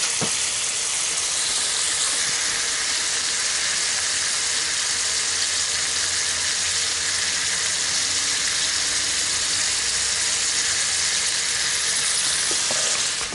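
Jurel (jack mackerel) steaks frying in garlic margarine in a frying pan, with a steady sizzle.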